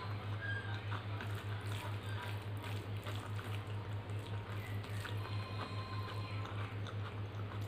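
Wet squishing and small clicks of rice and dal being mixed and squeezed by hand, with chewing, over quiet background music whose low, steady pulsing beat is the loudest sound.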